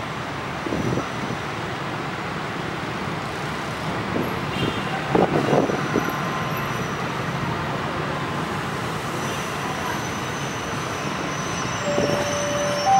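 Diesel-electric locomotive running steadily as it hauls a passenger train slowly into the station, with a few brief louder sounds about five seconds in; a steady tone starts just before the end.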